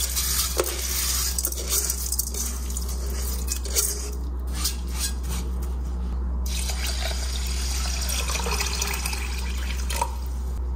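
Wet soaked rice tipped from a bowl into an enamelled cast-iron pot with a trickle of water, the grains then worked by hand. Water is poured into the pot near the end.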